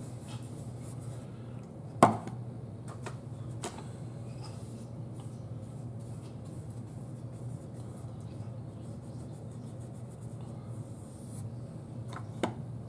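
Flat paintbrush scrubbing and dragging acrylic paint across stretched canvas, a soft scratchy rubbing. The brush carries little paint, so the colour scumbles and breaks up. A sharp knock about two seconds in and a smaller one near the end, over a steady low hum.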